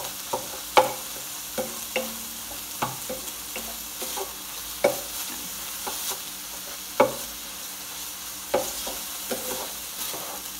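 Lean ground beef sizzling in an electric skillet, almost fully browned. A utensil scrapes and knocks against the pan at irregular intervals as the meat is stirred and broken up.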